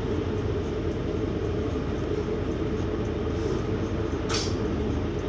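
Double-decker bus running, a steady low drone of engine and body noise heard from the upper deck, with two brief hisses about three and a half and four and a half seconds in.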